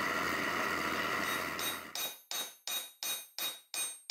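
A steady hiss for about two seconds, then a hammer peening a red-hot steel rivet on the cleaver's handle, with metallic ringing blows about three a second, setting the rivet.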